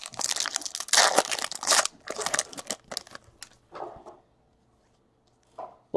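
Foil wrapper of a trading-card pack crinkling as hands pull it off the stack of cards. The rustling is densest over the first two and a half seconds, with a few fainter rustles after.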